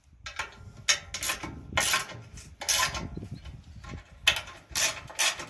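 Ratchet wrench clicking in short, uneven strokes, about one to two a second, as the bolts holding a wood chipper's blade guide are tightened.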